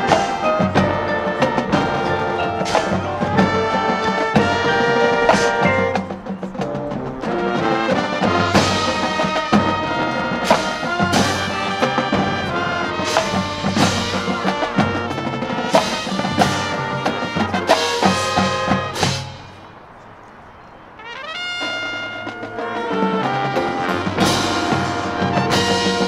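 High school marching band playing its field show: brass section with drums and front-ensemble percussion. Near the end the music drops to a quiet passage for about two seconds, then builds back in.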